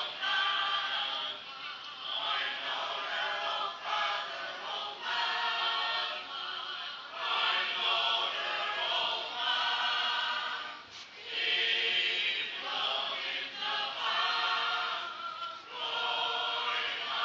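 A choir singing together without accompaniment, in long sustained phrases with short breaks, the clearest just after eleven seconds in.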